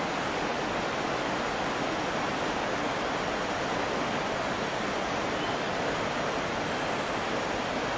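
Steady, even rush of water, with no breaks or separate sounds.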